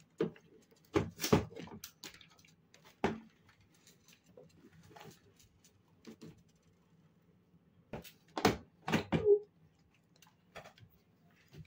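Knocks and clatter of an Avery Berkel electronic scale's plastic casing against a wooden table as it is handled and turned back upright: a few sharp knocks in the first second and a half, one at about three seconds, and the loudest cluster at about eight to nine seconds.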